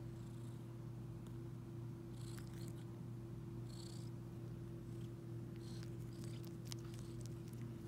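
Cat purring steadily, with faint clicks and smacks now and then as it suckles the fur of a sheepskin rug.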